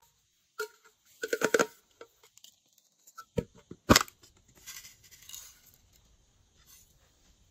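Small hard objects clicking and clinking, with a quick run of clinks about one and a half seconds in and a sharp tap around four seconds, the loudest. A soft rustle follows around five seconds.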